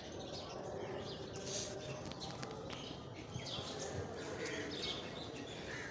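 Birds chirping faintly, short scattered calls over steady background noise.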